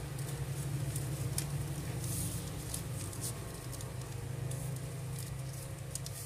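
Sheet of paper rustling and crinkling in short, faint bursts as it is folded into a paper plane, over a steady low hum.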